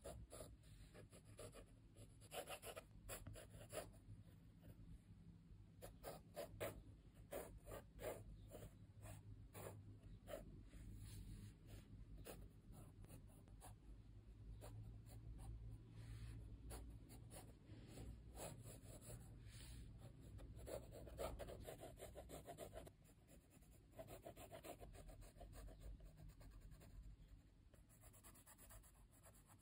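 Faint scratching of a blue coloured pencil sketching on 100 gsm sketchbook paper, in short, irregular strokes.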